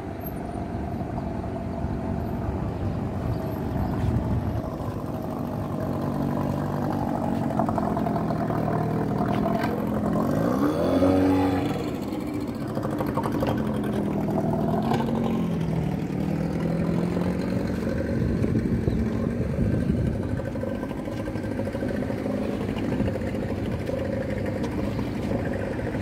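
Motor engines hum steadily. About eleven seconds in, one engine passes close, getting louder as its pitch rises and then falls away.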